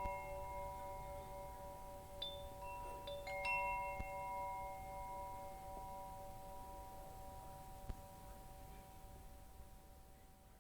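Wind chimes ringing: a few clustered strikes around two to three and a half seconds in, then the tones ring on and slowly die away.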